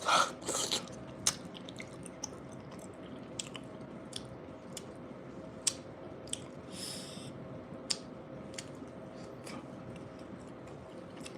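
Close-up chewing of a mouthful of bean burrito, with wet mouth clicks and smacks scattered throughout and a louder burst in the first second.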